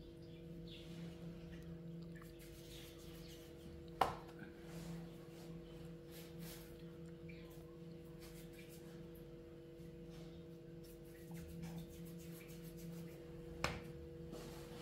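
Faint steady hum of a few fixed tones, with two sharp knocks, one about four seconds in and one near the end, and small clicks here and there.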